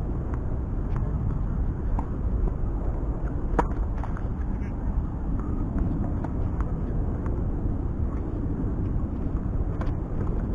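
Steady low outdoor rumble with a few sharp knocks of tennis balls struck by rackets at irregular spacing; the loudest hit comes about a third of the way in.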